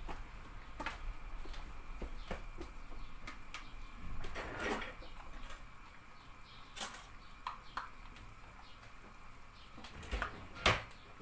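Kitchen handling noise: scattered light clicks and knocks of plastic storage containers and their lids being opened and set down on a countertop, with a few sharper knocks near the middle and near the end.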